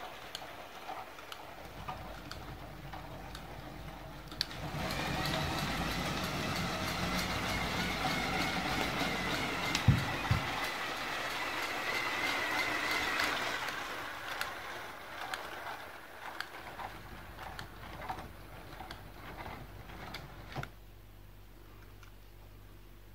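Mould King Orient Express clamp-brick model steam locomotive and coaches running on plastic track: a steady motor whine with many small clicks from the wheels on the track, louder for several seconds in the middle. One thump about ten seconds in.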